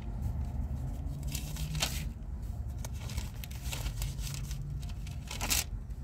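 Short rustling and scraping handling noises, a few brief bursts with the clearest near the end, over a steady low hum inside a car.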